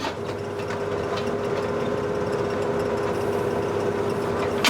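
Wacker Neuson excavator's diesel engine running steadily, with a steady whine over it, as the machine travels down a slope with its bucket held out.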